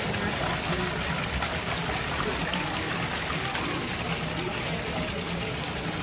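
Small waterfall pouring over rocks and splashing into a pool, a steady rush of falling water.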